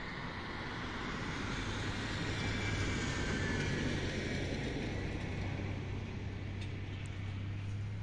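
A motor vehicle engine running with a steady low hum, swelling slightly about three seconds in.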